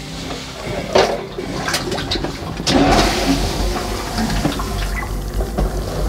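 Water sloshing and splashing in a well as a Denzel submersible drainage pump is lowered into it on its hose. About three seconds in, a low steady hum with rushing water starts: the pump's built-in water-level sensor has switched it on once submerged.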